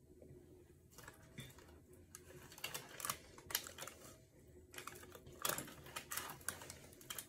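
Faint, irregular clicks and taps from taking the meat off a cooked chicken, fingers and utensils working it on its tray, busier in the second half.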